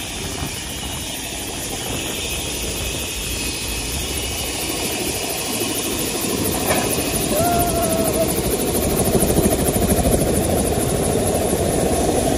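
Helicopter engine and rotor running, a dense steady drone that grows gradually louder. A short thin tone sounds about seven and a half seconds in.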